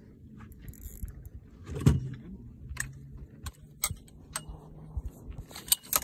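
Scattered clicks, rattles and knocks of fishing rods, reels and gear being handled in a boat, with one louder thump about two seconds in and a quick run of clicks near the end.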